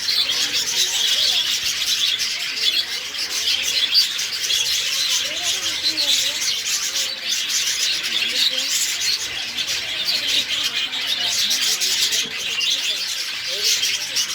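Dense chorus of many caged birds chirping and twittering at once without a break, with lower, softer cooing mixed in beneath.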